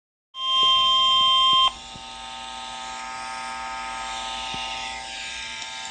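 NOAA Weather Radio warning alarm tone: a loud, steady single tone near 1 kHz that lasts just over a second and cuts off abruptly. It is followed by the quieter steady hum and hiss of the weather radio broadcast, ahead of a severe thunderstorm warning.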